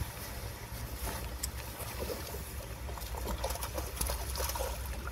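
Hooked trout splashing and thrashing at the water's surface as it is played in close to the bank, in short irregular splashes that grow busier towards the end, over a steady low rumble of wind on the microphone.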